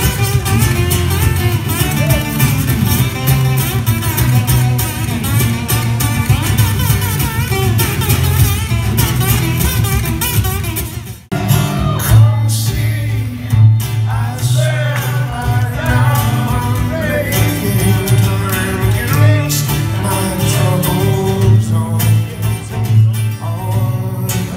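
Live acoustic guitar duo playing in a concert hall, two acoustic guitars with a singing voice. The music breaks off abruptly about eleven seconds in and picks up again mid-song.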